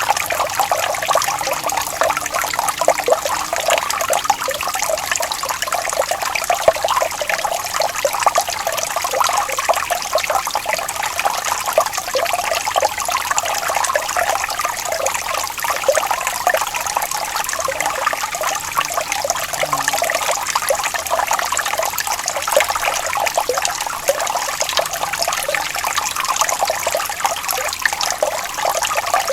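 Running water trickling and splashing in a steady, unbroken stream.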